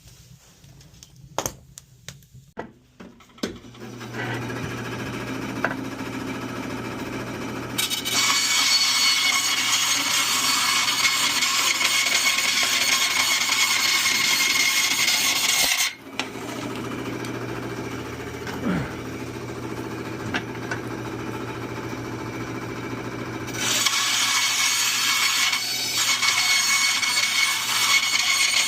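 Bandsaw cutting scrap HVAC parts: a few light clicks of parts being handled, then the saw motor starts with a steady hum about four seconds in. Loud cutting begins about eight seconds in, stops sharply around sixteen seconds leaving the saw running free, and starts again near the end.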